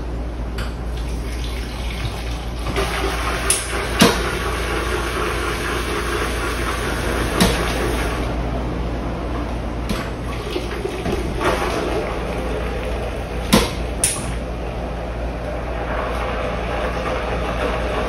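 DeLaval automatic calf feeder mixing a batch of milk replacer: liquid pours into the mixing bowl over a steady machine hum. Several sharp clicks come from the machine at irregular intervals.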